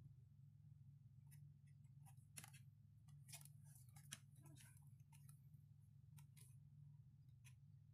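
Near silence: a faint steady low hum under scattered soft clicks and rustles from a photocard being handled.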